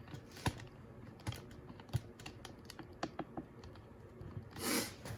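Scattered light clicks and taps of small parts being handled, irregular and a dozen or so in all, with a brief rustling rush near the end.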